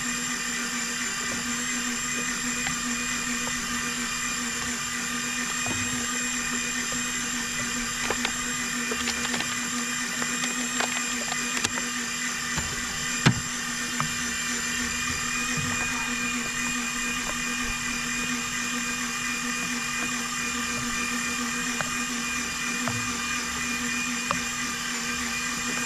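Daiwa Seapower 800 electric fishing reel's motor whining steadily as it winds a fish up from deep water under load, its drag just tightened. One sharp click near the middle.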